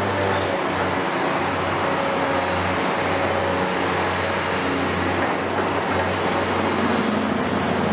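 Hitachi Zaxis 470 excavator's Isuzu six-cylinder diesel engine running steadily with a low, even hum while the arm and grab work.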